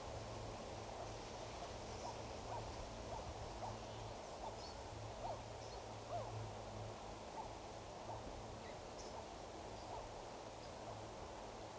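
Outdoor ambience of steady hiss and a low hum, with faint, short chirping calls from distant small animals, about one or two a second.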